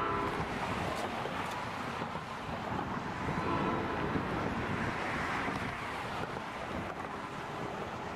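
Wind buffeting the microphone over the steady rumble of a freight train, led by an EMD GP38 diesel locomotive, rolling across a trestle. The horn sounds faintly and briefly about three and a half seconds in.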